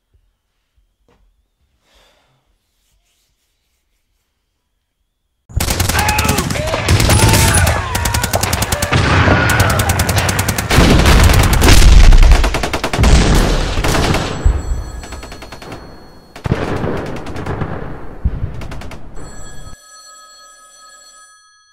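Video game gunfire: rapid, loud machine-gun fire with heavy booms, starting about five seconds in after near silence and cutting off abruptly near the end. A mobile phone ringtone then starts, quieter, with several steady tones.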